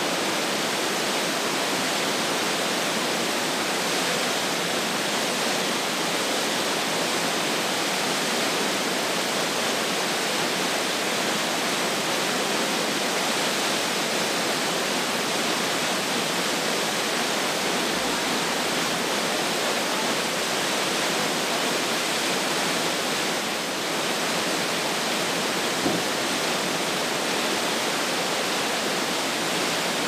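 Entrance Cascade, a waterfall in high flow, pouring through a narrow rock gorge: a steady, unbroken rush of falling water.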